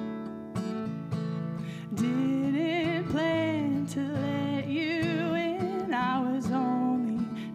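Live acoustic song: an acoustic guitar strumming chords, with a solo vocal line coming in about two seconds in and carrying on over the guitar.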